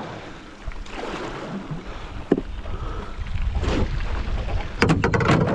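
Water sloshing and splashing around a floating pontoon, with a single knock a little over two seconds in and a quick cluster of knocks near the end.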